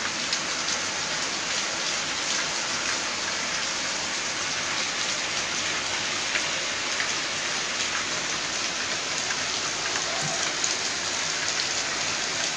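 Heavy monsoon rain falling steadily: a dense, even hiss with many small sharp drop taps.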